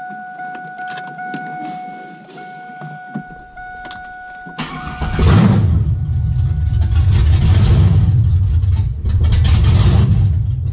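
A dash chime sounds as a steady tone. About four and a half seconds in, the starter cranks and the Camaro Z28's LS1 V8 fires up and runs loudly for about five seconds, dipping briefly, then drops away sharply near the end.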